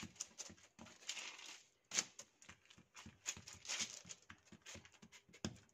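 Hands pressing and patting msemen dough flat on a worktop laid with kitchen paper: a run of soft, irregular slaps, taps and light crinkles.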